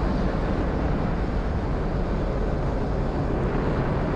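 Falcon 9 first stage's nine Merlin engines heard from the ground during ascent: a steady, dense low rumble.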